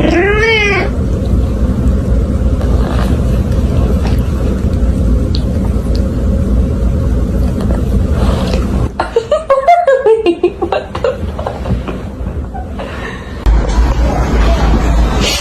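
Cat meowing: one short rising-and-falling meow right at the start, then a quick run of short meows about nine seconds in, over a steady low rumble.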